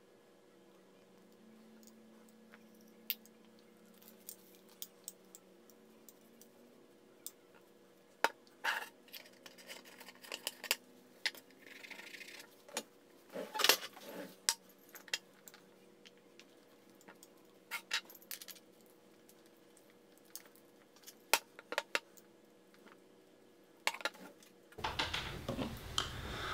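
Quiet, scattered clicks and clinks of PVC pipe pieces and fittings being handled and set down on a wooden board, with a short clatter about halfway through. Near the end a low rumbling handling noise comes in.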